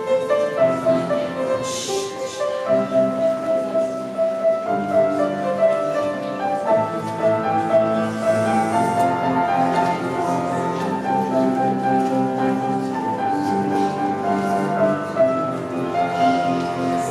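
Solo piano playing a melody over held chords.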